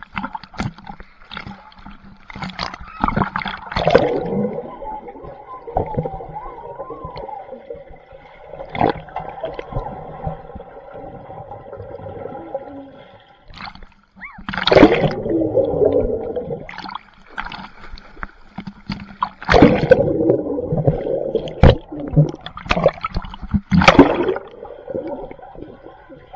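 Swimming-pool water splashing and gurgling as someone moves in it, with louder bursts of splashing a few seconds in, around the middle, and through the last third.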